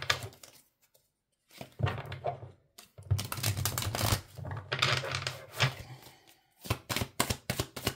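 A deck of oracle cards being shuffled by hand: rustling card handling, then near the end a fast run of card clicks, about four to five a second.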